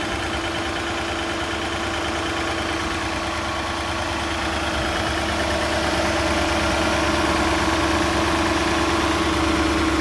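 Mercedes 420SEL's 4.2-litre M116 V8 idling, still shaky from a misfire on a cylinder with low compression (about 130 psi), with automatic transmission fluid soaked into that cylinder. The idle holds steady and grows slightly louder over the second half.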